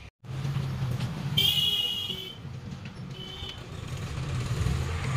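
Road traffic rumbling, with a vehicle horn honking for about a second, starting about one and a half seconds in, and a shorter, fainter toot about a second later.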